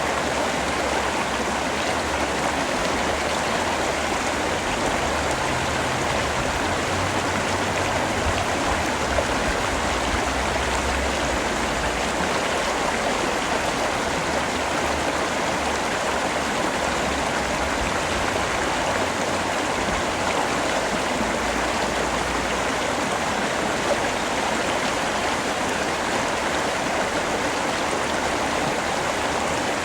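Steady rain falling, an even, unbroken hiss of water with no pauses or lulls.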